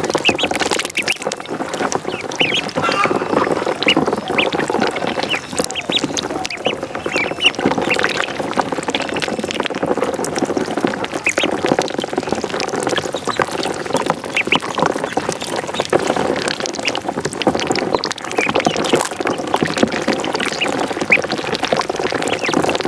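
Ducks and ducklings calling without pause: overlapping quacks mixed with many short, high peeps.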